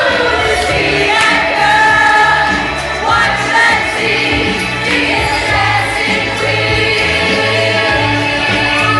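Loud dance music with sung vocals over a steady bass line, with a group of partygoers singing along.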